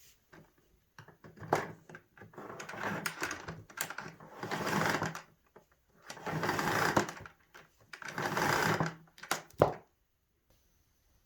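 Clattering and scraping of plastic parts being handled, in several bursts about a second long with sharp clicks between them.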